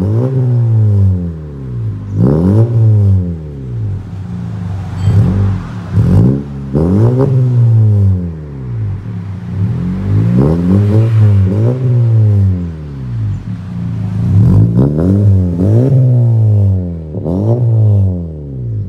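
Honda Civic FK hatchback's turbocharged four-cylinder revved repeatedly at standstill in short blips, each climbing and dropping back to idle, some in quick pairs. It breathes through an aftermarket titanium exhaust with downpipe, titanium mid-pipe and twin centre-exit tips.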